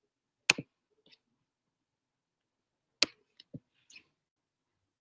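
Two sharp computer mouse clicks about two and a half seconds apart, each followed at once by a softer second click, with a few faint ticks after the second.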